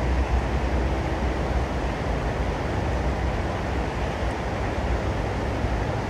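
Steady rumbling noise with an even hiss, with no bird calls standing out.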